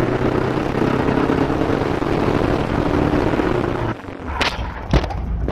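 Volvo's engine running steadily under way, heard inside the car. About four seconds in the engine note suddenly drops away, and two short sharp sounds follow.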